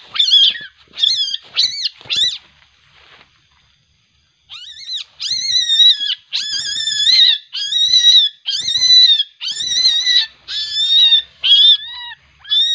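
Baby Asian palm civet (musang pandan) giving repeated shrill cries, each rising and falling in pitch. There are four quick cries, a pause of about two seconds, then a steady run of about nine more, a little over one a second, the cries of an agitated young civet being handled.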